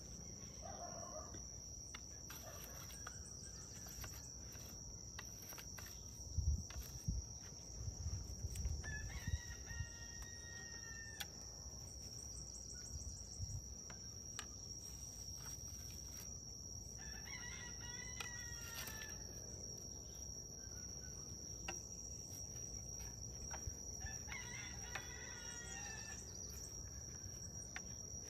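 A rooster crowing three times, each crow about two seconds long, over a steady high-pitched whine. A few dull thumps, the loudest sounds, come about six to eight seconds in.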